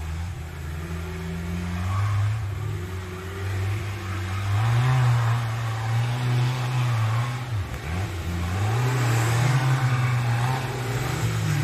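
Off-road racing vehicle's engine revving hard under load, its pitch climbing and falling with the throttle, with a short drop in revs about eight seconds in before it picks up again.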